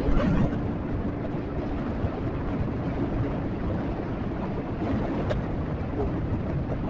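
Motorcycle being ridden along the road, its engine running steadily under a dense rush of road and wind noise.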